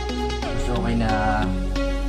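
Background music with a steady beat, electronic in style, with a gliding lead melody and a steady bass.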